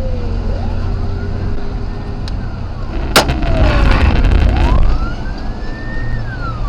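Police car siren wailing slowly up and down over a car engine running at speed, with a single sharp gunshot about three seconds in, fired during the pursuit.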